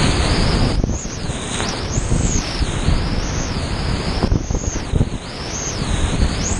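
Big-water whitewater rapids on the Rio Grande at high flow rushing and splashing around a kayak, with water and wind buffeting the microphone. The sound briefly muffles twice, about a second in and again just past four seconds.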